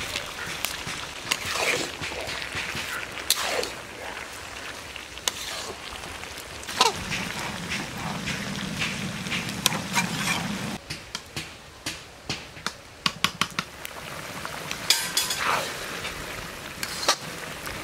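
Cabbage, potato and brinjal chorchori sizzling in a karai while a spatula stirs it, scraping and knocking against the pan in quick clicks. Toward the end, a fish curry bubbles at the boil.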